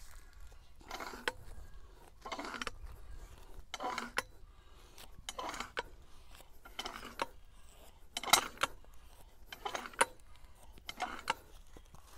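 Lever-action post popper jacking a steel dynamic cone penetrometer rod out of the ground. Each pump of the lever brings a short metallic clank and scrape, about every second and a half.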